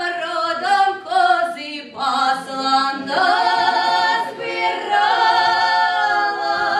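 Female vocal trio singing unaccompanied, several women's voices together: short moving phrases, then long held notes from about three seconds in.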